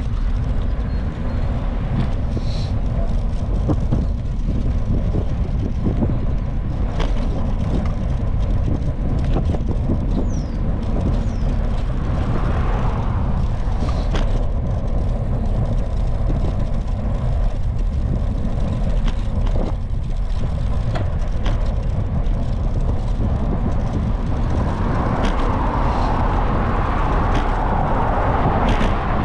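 Wind buffeting the microphone of a camera riding along on a moving bicycle, over steady road-traffic noise, with a louder hiss building near the end.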